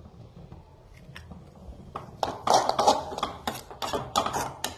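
A perforated steel skimmer ladle scraping and clattering against a metal kadai while stirring a freshly cracked egg into diced banana stem. A couple of light taps come first, then from about two seconds in a quick run of strokes, about five a second.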